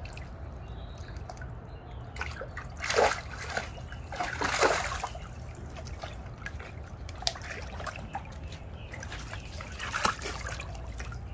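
A golden retriever splashing and pawing at the water in a small foldable pool, with sloshing and trickling between the bigger splashes. The loudest splashes come about three and four and a half seconds in, and another near the end, over a steady low hum.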